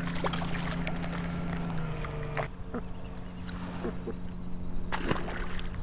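A hooked sea robin splashing at the surface as it is lifted, then handling clicks and splashes as the fish is held and the lure is worked free. Under it runs a steady low motor hum whose pitch shifts about two seconds in.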